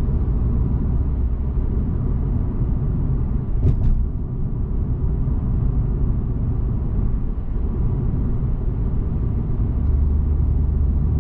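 Steady low rumble of a car driving, engine and road noise heard from inside the cabin, with one brief click just under four seconds in.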